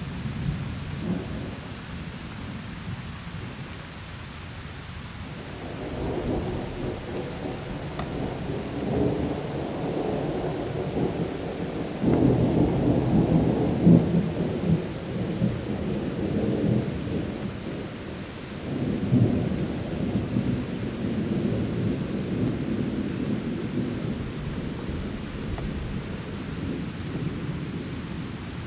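Thunder rolling over steady rain. The rumble builds about six seconds in, breaks into a sudden louder peal around the middle, swells again a little later, then eases off.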